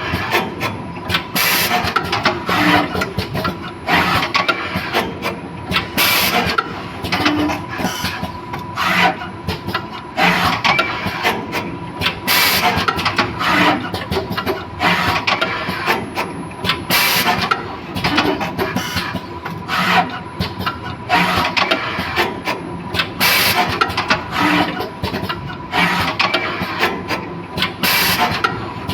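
Automatic wire soldering machine running its cycle: continuous mechanical clatter and clicking, short hissing bursts every second or two, and a steady high hum underneath.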